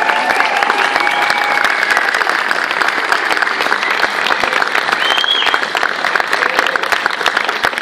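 Crowd applauding steadily, with a few held voices cheering over the clapping near the start and a short high cheer about five seconds in.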